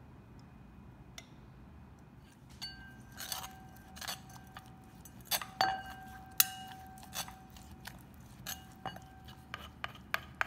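A metal spoon clinking and scraping against a metal mortar bowl as seasoning is stirred into an herb paste, each knock leaving the bowl ringing briefly. The clinks start a couple of seconds in and come irregularly, with the loudest near the middle ringing on for a couple of seconds.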